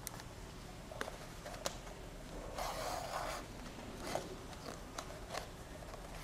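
Leather lace being pulled through a punched hole in leather for a whip stitch: one rasping pull lasting under a second about midway, with a few light clicks of handling before and after.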